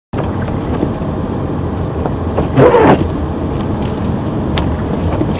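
Car driving along a dirt road: steady engine and tyre noise, with a brief louder rush about halfway through and a couple of light clicks near the end.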